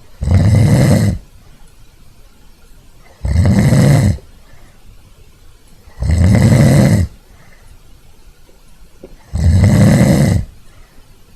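A person snoring: four snores, each about a second long, about three seconds apart.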